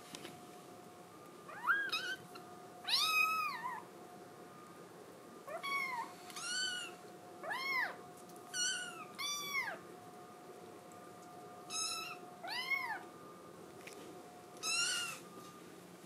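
Kitten meowing over and over, about ten high cries that rise and fall in pitch, with short gaps between them: crying to be let out.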